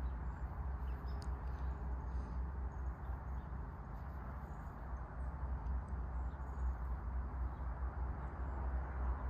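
Outdoor background noise: a steady low rumble with a faint hiss above it.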